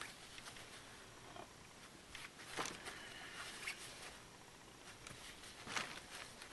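Faint handling sounds of quilting fabric being turned over: soft rustling with a few light knocks.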